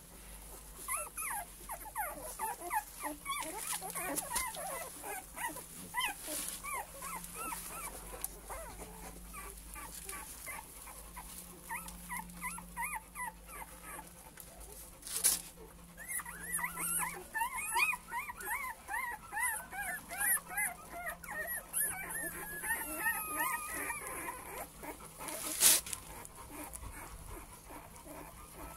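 Cane Corso puppies whimpering and squeaking: many short rising-and-falling cries overlapping, busiest past the halfway point. There are two sharp knocks, about halfway through and near the end; the second is the loudest sound.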